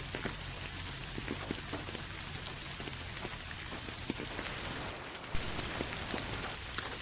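Steady rain falling, with many separate drops striking close by as sharp little ticks over an even hiss; the sound briefly drops away about five seconds in, then resumes with a sharp drop hit.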